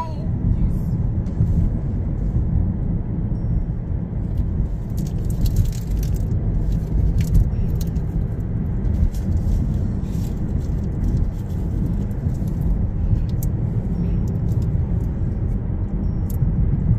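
Steady road and engine rumble heard inside a moving car's cabin, with light clicking rattles now and then.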